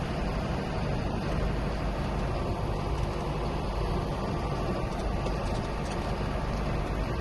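John Deere 9500 combine running steadily while harvesting corn: a constant engine and machinery drone with no change in pitch or level.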